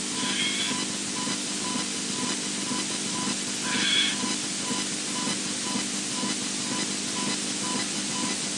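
Nest-camera audio thick with electrical interference: a steady hiss, a low hum and a short beep repeating about twice a second. Through it come a brief high call just after the start and a louder one about four seconds in, from a creature the uploader cannot identify.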